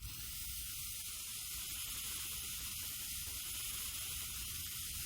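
Flamethrower hissing steadily and quietly, with a faint low rumble beneath.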